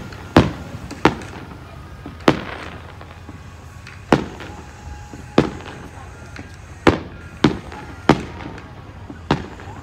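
Aerial firework shells bursting in the sky, about ten sharp bangs at irregular intervals.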